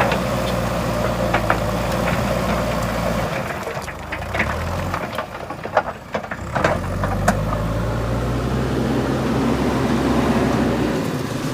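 JCB 3DX backhoe loader's diesel engine running steadily under working load, its pitch dipping and rising a couple of times, with a handful of short sharp knocks in the first half or so.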